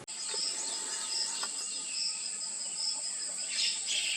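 Insects shrilling: a steady high whine with a pulsing chirp repeated about two or three times a second, and a brief higher call near the end.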